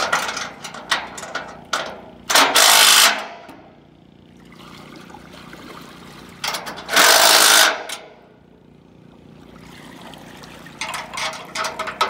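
Cordless impact driver with a half-inch socket hammering bolts tight on aluminium dock supports, in two bursts of about a second each, a few seconds apart. Sharp knocks and clicks come between the bursts and again near the end.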